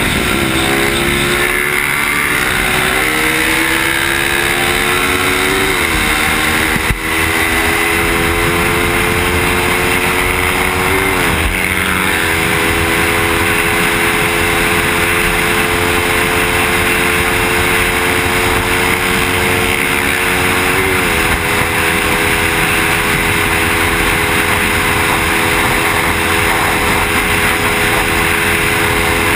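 Suzuki motorcycle engine heard from on board, pulling hard up through the gears: the engine note climbs, and the pitch shifts at each of three gear changes, about six, eleven and twenty-one seconds in, before it holds at high revs. Heavy wind rush runs under it throughout, and there is a single sharp knock about seven seconds in.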